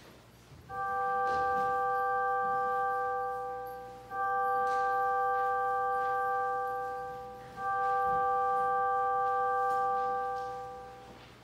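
A bell struck three times at the same pitch, each stroke ringing for about three seconds before fading, signalling the start of the worship service.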